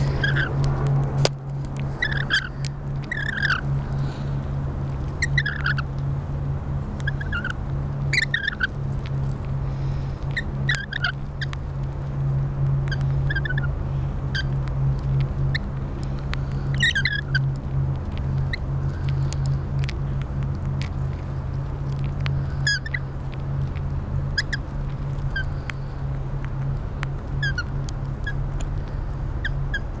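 Rainbow lorikeets giving short, high chirps every second or two while feeding, with scattered sharp clicks, over a steady low hum.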